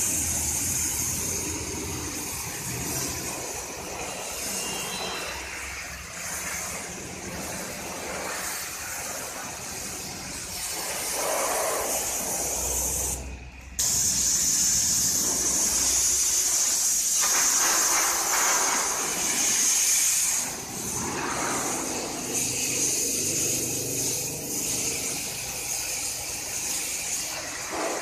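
High-pressure water jet from a Kärcher HD 6/15-4 Classic pressure washer hissing steadily as it strikes a car's wheel and bodywork. It cuts out briefly about halfway, then comes back louder for several seconds.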